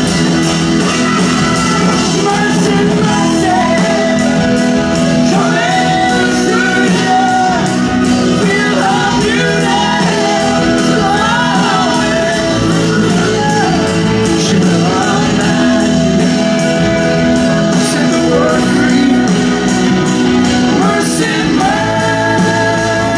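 Live rock band playing in a large hall: electric guitars, drums and a horn section of trombone, trumpet and saxophone, with singing over the top.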